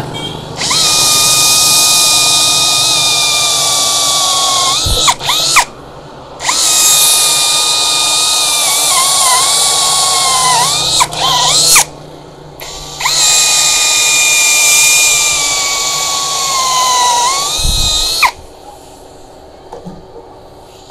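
Brushless cordless drill boring deep into a wooden block with a long auger bit, in three runs of about five seconds each. Its motor whine sags in pitch as the bit bites in and rises again as the bit frees or the trigger is released. The drill runs through the deep bores without its battery circuit cutting out.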